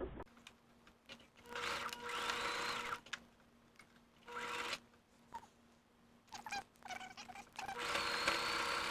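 Electric sewing machine zigzag-stitching an elastic waistband onto stretch knit fabric, running in short bursts: one of about a second and a half a little after the start, a brief one near the middle, and a longer run from near the end. A few faint clicks come between the runs.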